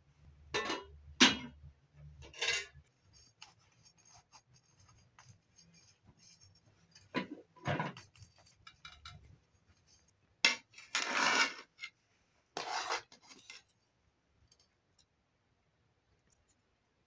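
Metal kitchenware clinking and scraping in a string of separate knocks and scrapes, the sharpest about a second in and a longer scrape about eleven seconds in. A perforated metal skimmer works on the crisp saffron rice crust (tahdig) against a metal serving platter.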